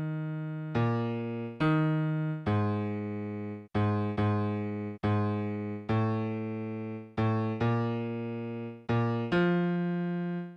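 Piano sound playing the bass part of a choral song: a slow line of single low notes, one at a time, each struck and left to fade before the next.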